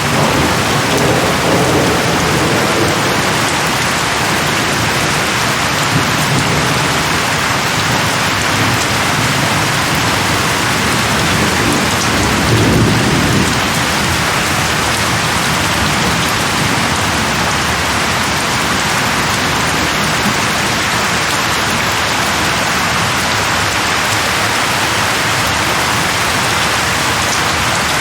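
Heavy rain falling steadily, with low rolls of distant thunder rumbling underneath, the strongest about halfway through.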